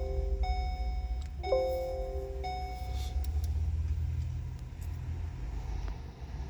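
An electronic two-tone chime sounds four times, about once a second, and stops about three seconds in. Under it runs a steady low hum from the car's running engine.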